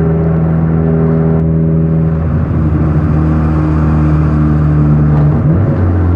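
Car engine and aftermarket exhaust with an electronic cutout, running at a steady drone while driving. The engine note breaks and changes abruptly about five and a half seconds in, then carries on with a deeper tone.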